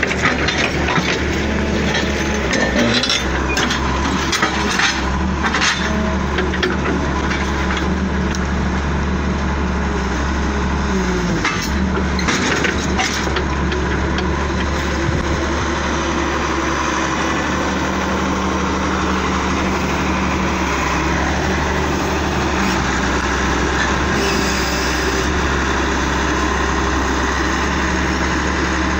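Heavy excavator's diesel engine running steadily, with scattered metallic clanks and knocks, most of them in the first few seconds and again about twelve seconds in.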